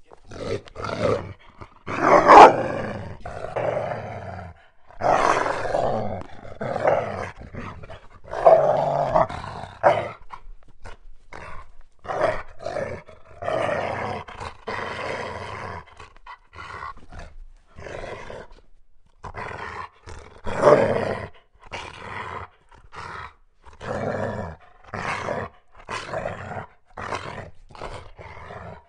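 Wolf growling and snarling in a long series of short, rough bursts, with the loudest snarls about two seconds in and again about twenty-one seconds in.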